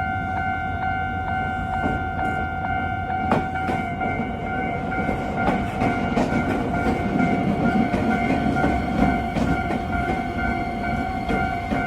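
Japanese railway level-crossing warning bell ringing steadily with its electronic 'kan-kan' tone while an Iyotetsu Takahama Line train passes. The wheels rumble and clack over the rail joints, loudest past the middle.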